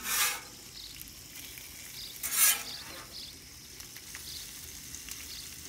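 Food sizzling on a hot Blackstone flat-top griddle, with two short, louder bursts of hiss about two seconds apart.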